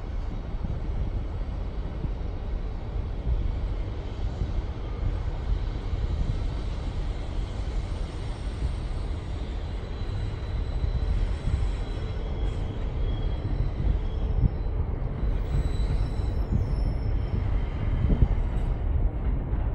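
Distant ACC-class C44aci diesel-electric locomotive approaching with a freight train: a low steady rumble that grows slightly louder near the end, with faint high tones in the second half.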